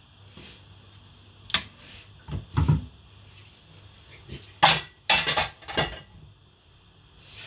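Kitchen clatter as things are handled by hand: a click, a few dull thumps, then a run of sharp, loud clanks and knocks about five seconds in.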